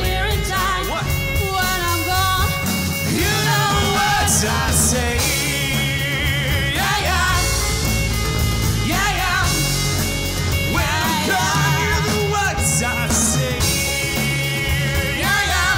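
Live rock band playing with drums, bass, guitars and violin, with a sung melody over it.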